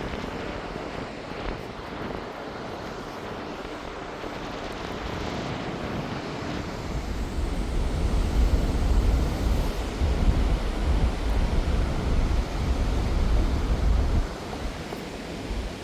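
Steady rushing noise of water pouring over an overflowing dam, with wind buffeting the microphone as a heavy low rumble through the middle and later part.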